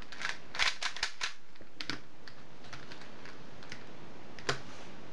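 Rubik's-type 3x3 speedcube being turned fast, its plastic layers clicking: a quick run of turns in the first two seconds, then sparser clicks, with one louder click about four and a half seconds in.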